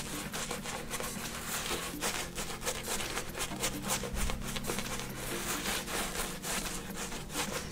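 Shaving brush rubbing lather over the face in a rapid, steady run of back-and-forth strokes.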